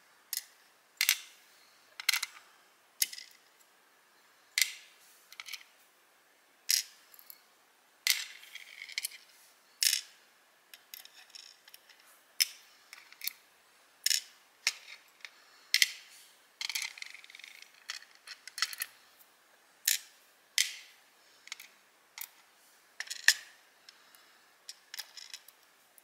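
Steel tweezers taking small brass key pins out of a dimple lock cylinder's plug and setting them into a plastic pin tray. The sound is a run of sharp little metal clicks and taps, about one a second at uneven spacing.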